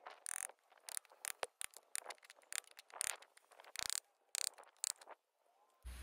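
Quick, irregular knocks and scrapes of a tool working into wood, several a second, as a log half is hollowed out.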